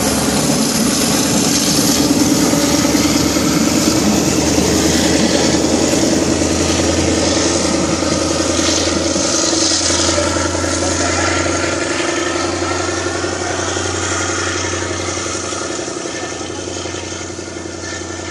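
Steady running noise of a diesel train heard from aboard while it is under way: a loud engine drone with a low hum, easing off slightly near the end.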